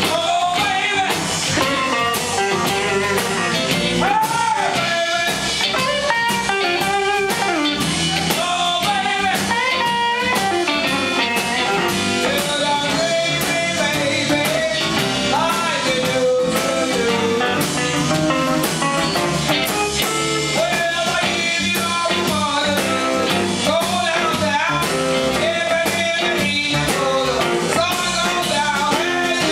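Live blues-rock band playing: a woman singing over two electric guitars, bass and drums, with bending guitar and vocal lines over a steady groove.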